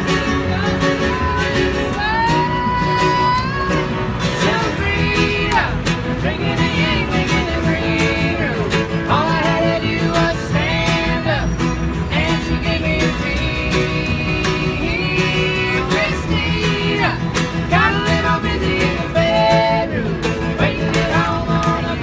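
Acoustic bluegrass string band playing: a fiddle's gliding melody over a strummed acoustic guitar and a plucked upright double bass.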